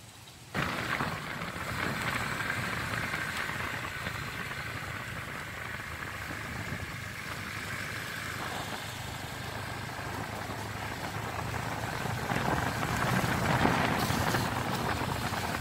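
A motor vehicle on the move: steady engine hum with road noise, a little louder near the end.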